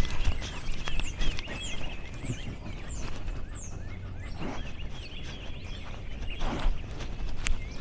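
Small birds chirping: a run of quick, high, downward-gliding chirps about two a second, with lower chirps among them, over a steady low rumble. Two short breathy puffs come about halfway through and near the end.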